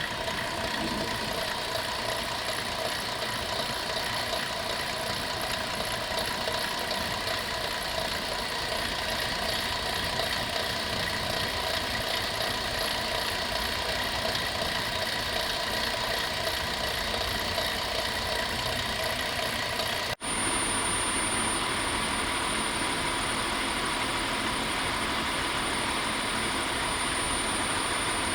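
Chrysler 3.3-litre V6 running with a steady, fast mechanical rattle, which the owner traced with a stethoscope to a noisy alternator, typical of a failing alternator decoupler pulley. About twenty seconds in the sound cuts briefly; after that the engine runs on with a steady high whine.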